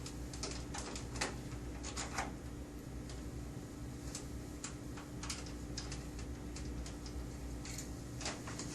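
Light, irregular clicks of a screwdriver working the screws out of a copier's paper drawer, over a steady low hum.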